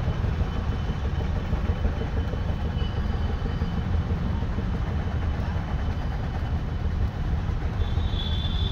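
Steady low rumble of traffic stuck in a jam, with vehicle engines idling. A faint high tone comes in near the end.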